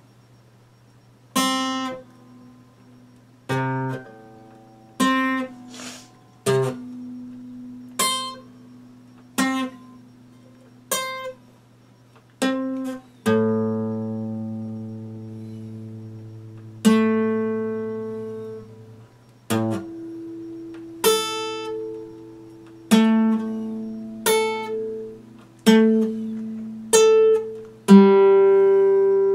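Epiphone acoustic guitar played slowly: single plucked notes and chords struck about every one to two seconds and left to ring, with one chord held ringing for several seconds around the middle.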